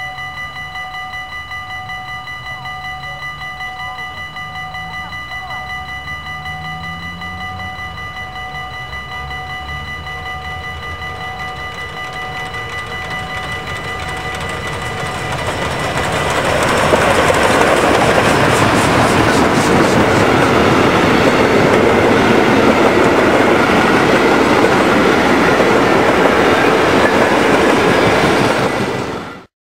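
Level crossing bell ringing steadily while a train approaches. From about 16 seconds a steam train headed by two steam locomotives, ZLSM 1289 and 1040, rolls past close by, loud, with its coaches rattling over the rails, and the sound cuts off abruptly near the end.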